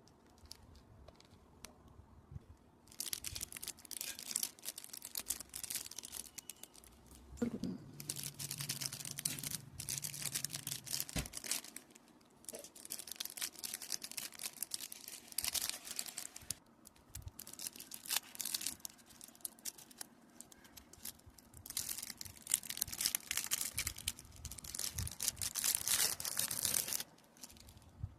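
Marshmallows being squeezed and pulled apart: several stretches of dense crackling and tearing, broken by short pauses.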